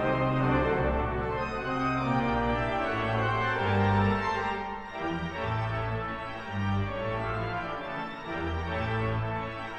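Large concert pipe organ, the instrument 'Lucy', playing sustained chords over low bass notes that step from one held pitch to the next every second or so.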